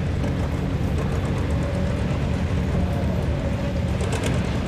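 Farm tractor engine running steadily, a steady low engine note with no change in speed.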